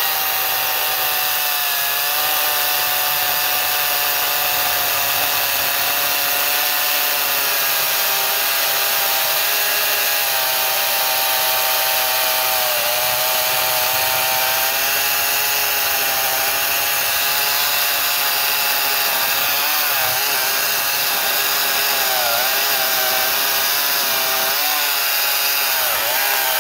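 Echo DCS-5000 56-volt cordless chainsaw with a low-profile Oregon S62 chain on a narrow 18-inch bar, running at full speed while cutting down through a log in one long steady cut. Its whine dips in pitch a few times in the second half as the chain bogs down a little while the bar is twisted to straighten the cut.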